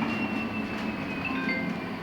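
LiAZ-6274 electric bus heard from inside the cabin: the electric drive whines in thin high tones that fall in pitch and step down about halfway through, over a steady hum and road noise. The falling whine marks the bus slowing as it pulls in to a stop.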